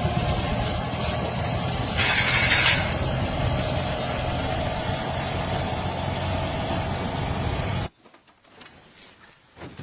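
Motorcycle engine running steadily, with a short higher-pitched noise about two seconds in; this is the strange noise the owner is asking about. The sound cuts off abruptly just before the end, leaving only faint clicks.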